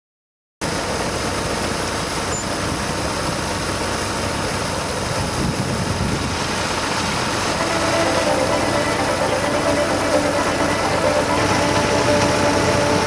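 Farm diesel engine idling steadily, starting after a brief silence; from about eight seconds in it grows a little louder, with a faint steady tone joining it.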